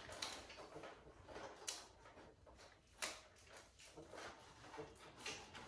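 Faint handling noises: soft rustling with a few scattered light clicks and knocks as the animatronic's costume and parts are worked by hand.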